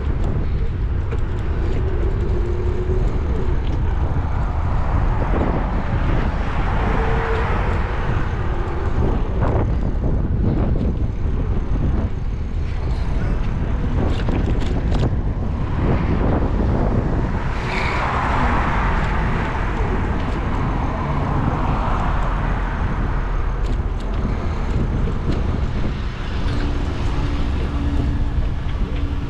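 Car driving along a busy city street: steady engine and road rumble, with other traffic swelling and fading as it passes.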